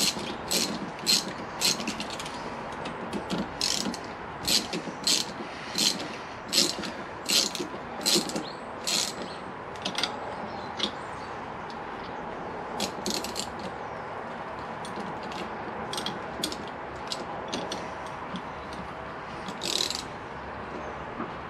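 Ratchet wrench clicking as it tightens the nut on a motorcycle exhaust can's mounting bracket, in quick strokes of about two a second for the first ten seconds, then in sparser clicks.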